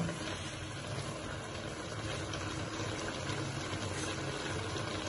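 Milk boiling among grated carrots in a wok on high flame, a steady bubbling simmer as the milk reduces and dries off for carrot halwa. A low steady hum sits underneath.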